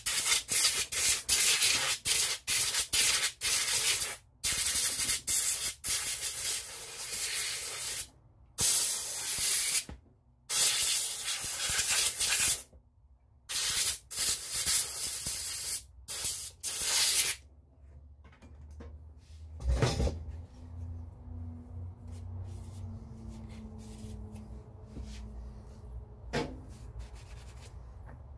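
Compressed air hissing from a nozzle in repeated short blasts of varying length, blowing a freshly rinsed rifle part dry. The blasts stop about two-thirds of the way through, leaving quiet handling with a couple of light knocks.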